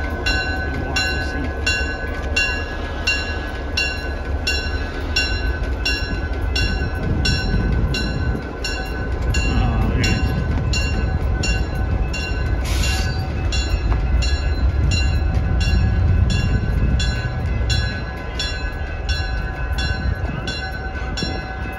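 Diesel locomotive engine running with a steady low rumble as it hauls the Thomas replica away along the track, growing louder in the middle. A bell rings steadily about twice a second, and there is a short hiss about 13 seconds in.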